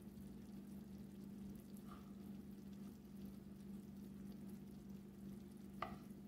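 Quiet kitchen room tone with a steady low hum, broken near the end by one short click of a serving spoon against a pan as rice is scooped out.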